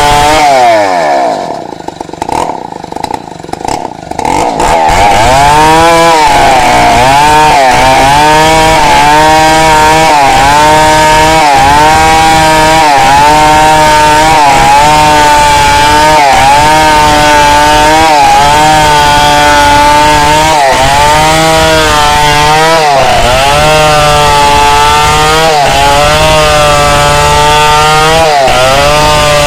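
Two-stroke chainsaw ripping a log lengthwise. The engine falls away and runs quieter just after the start, then is back at full throttle from about five seconds in. Its pitch dips and recovers every second or two as the chain bites into the wood.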